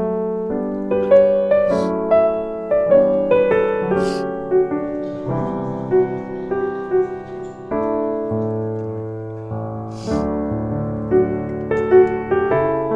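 Background music: a gentle piano melody over held chords, with a few light percussive hits.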